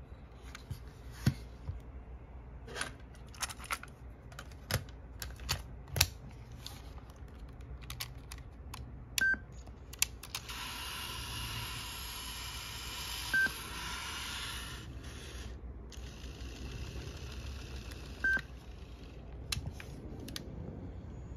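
Clicks and snaps of a Sony WM-EX910 cassette Walkman being handled: its lid shut and its buttons pressed. Three short electronic beeps, at the same pitch and a few seconds apart, sound in the second half over a steady hiss.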